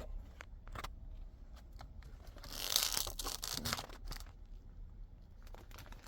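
Packaging being torn open and crinkled by hand, with scattered small clicks and one louder rustling tear about two and a half seconds in.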